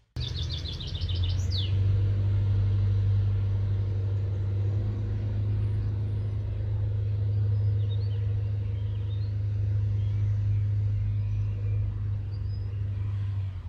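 Diesel regional train's engine running with a steady low hum as the train moves along the track. A few high chirps are heard in the first second or so.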